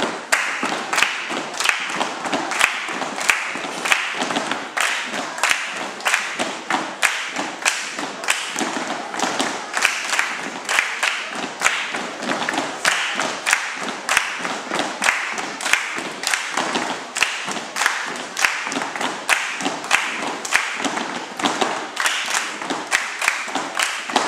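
A group of children performing body percussion in unison: rhythmic hand claps and slaps on the chest and body, sharp and dense, stopping together at the end.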